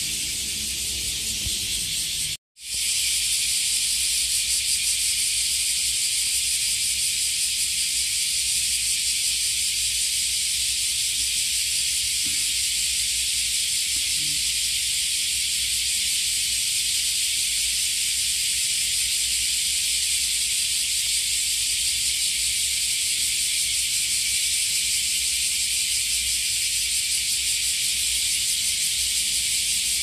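A chorus of cicadas making a steady, high-pitched buzzing drone. It drops out for a moment about two and a half seconds in, then carries on unchanged.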